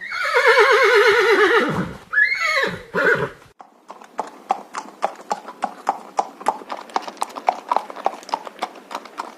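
A horse whinnies: one long, quavering call that falls in pitch, then a couple of shorter neighing calls. After that come quick, even hoofbeats, a clip-clop of about four beats a second.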